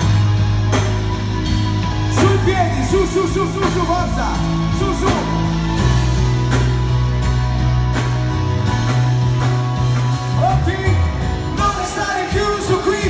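Live band playing loud through a PA: drum kit, electric bass holding long low notes, guitar and keyboards, with a woman singing lead over it.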